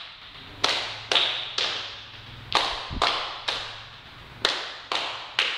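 Sharp percussive hits in a steady dance beat: three about half a second apart, then a short pause, the pattern repeating three times. Each hit rings on in a reverberant hall.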